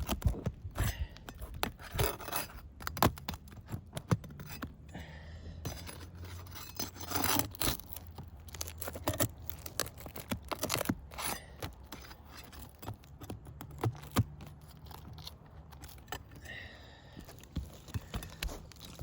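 Nails being pried out of brittle asphalt roof shingles: irregular scraping and rasping of a metal tool against the shingle granules, with many sharp clicks and cracks.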